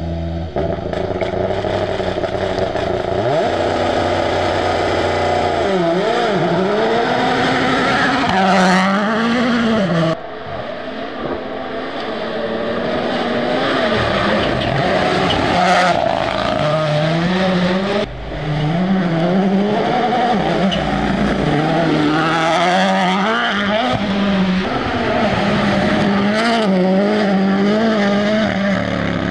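Toyota Yaris Rally1 rally car's turbocharged 1.6-litre four-cylinder engine running hard. Its pitch holds steady for the first few seconds, then rises and falls repeatedly with throttle and gear changes. The sound changes abruptly twice, about ten and eighteen seconds in.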